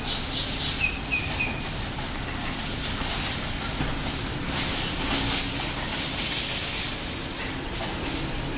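Outdoor background noise: a steady rushing haze that swells for a couple of seconds in the middle, with a few short bird chirps about a second in.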